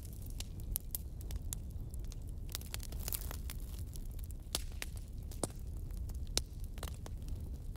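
Wood fire burning with irregular sharp crackles and pops over a steady low rumble; a few louder pops stand out, the loudest a little over six seconds in.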